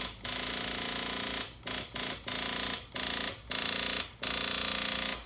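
The 2000 Kawasaki ZX-7R's starter circuit buzzing in about seven bursts as the start button is pressed again and again, without the engine turning over: a no-crank fault that the owner blames on the starter, having found the engine won't spin.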